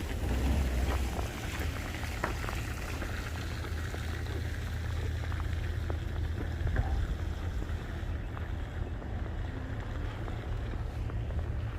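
Wind buffeting the microphone: a steady low rumble that swells for a moment about a second in, over faint outdoor ambience.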